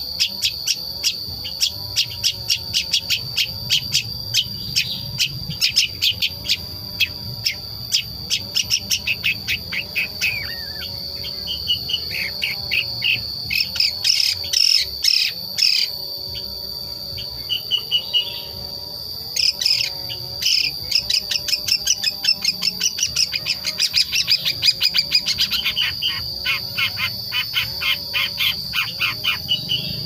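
Young long-tailed shrike (cendet), about five months old, giving a rapid chattering 'ngriwik' call of short, sharp notes, about five a second, with a couple of brief breaks. It is the bird's own natural, untutored call at the stage where it is learning to sing. A steady high insect whine runs underneath.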